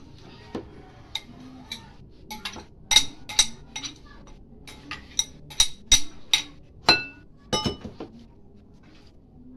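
A spoon clinking and scraping against glass bowls while ingredients are scooped into a glass mixing bowl: a run of sharp, ringing taps, loudest about three seconds in and again around six to seven seconds in.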